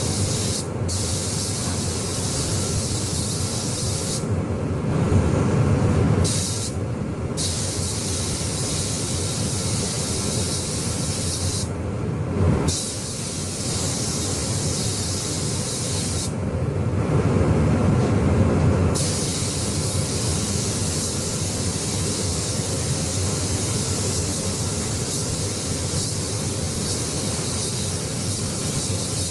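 Paint spray gun hissing steadily as the car body panel is sprayed. The hiss drops out briefly several times, longest about four seconds in and again at about seventeen seconds, and a lower rumble comes up each time.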